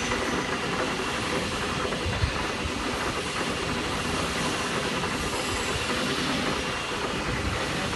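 Steady mechanical hum and hiss of running machinery, with one short knock about two seconds in.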